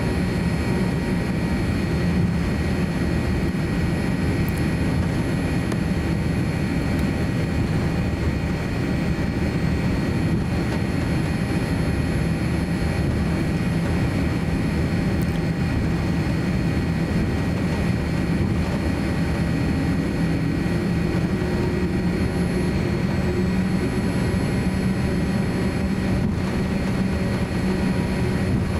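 Cabin noise of a Boeing 787-9 jetliner taxiing: a steady low rumble of the jet engines at taxi power, heard from inside the cabin, with faint steady high whining tones above it.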